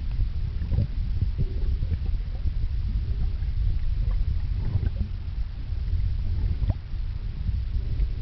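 Muffled underwater rumble and gurgling of water, picked up by a camera sealed in a plastic bag and held underwater, with short bubbling splashes from a snorkeler's fins kicking at the surface.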